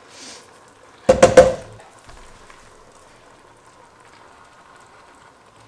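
Canned tomatoes and pasta sauce being tipped into a stainless steel pot of browned mince, with a loud clatter lasting about half a second about a second in. Faint sizzling underneath.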